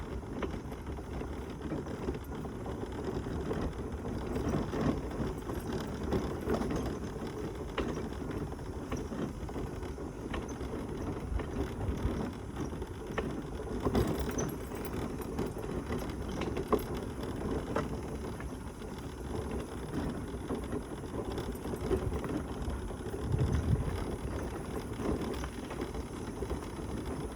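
Mobility scooter riding along a path: a steady low rumble of its wheels on the ground, with frequent light rattles and clicks from the scooter's body and fittings.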